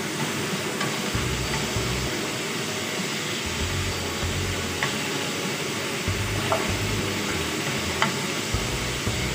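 Strips of meat in sauce sizzling in a non-stick wok while a plastic spatula stirs and turns them, with a few sharp clicks of the spatula against the pan in the second half.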